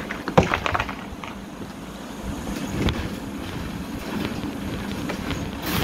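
Puppies scuffling in a plastic kiddie pool: paws scrabbling and knocking on the plastic, with a quick run of clicks about half a second in, a single knock near the middle and a rustle near the end.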